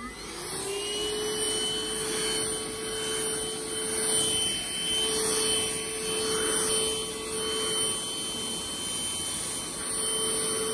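Deerma cordless handheld vacuum cleaner switched on, its motor winding up in pitch within the first second, then running steadily with a whine over the rush of air as its narrow nozzle works over a bed sheet.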